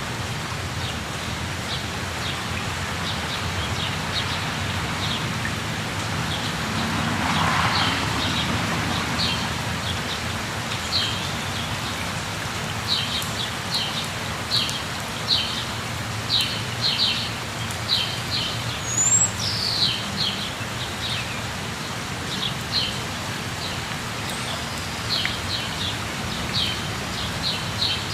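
Steady rush of a waterfall, with birds chirping over it in many short, high notes that come thicker in the second half.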